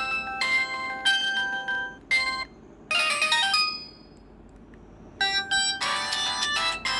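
Samsung GT-E1150 mobile phone playing a built-in polyphonic ringtone: a quick melody of bright synthesized notes that stops about three and a half seconds in. After about a second and a half of quiet, a melody starts up again.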